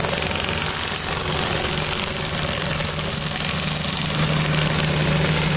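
Steady running of the 28 HP Kubota diesel engine on a trailer-mounted hot-water pressure washer, with a constant low hum. Over it is the even hiss of high-pressure water spraying from a rotary surface cleaner onto paving.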